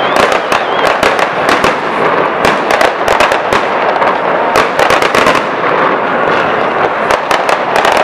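Aerial fireworks going off in quick succession: sharp bangs several a second over continuous crackling, with no pause.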